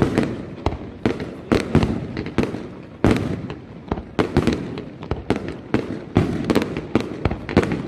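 Aerial fireworks display: a rapid run of shell bursts and bangs, several a second, each followed by a rumbling echo.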